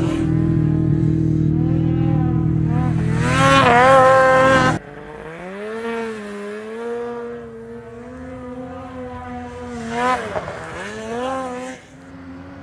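Snowmobile engines revving on a hill climb: one sled runs loud and close, rising in pitch before the sound drops off sharply about five seconds in, then a quieter sled engine keeps running, its pitch rising and falling, with another brief rev near the end.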